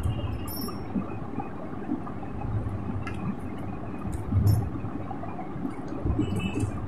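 Hands flexing and working a steel-wire-armoured cable at the point where its armour has been scored, giving small scattered clicks and ticks of the wire strands over a steady low hum.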